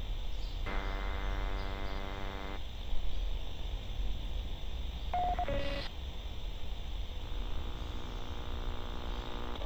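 Vintage tabletop radio being tuned across the dial: a steady hiss of static over a low hum, broken by held whistling tones between stations. One tone holds for about two seconds near the start, a short two-note beep comes around the middle, and a fainter tone comes in near the end.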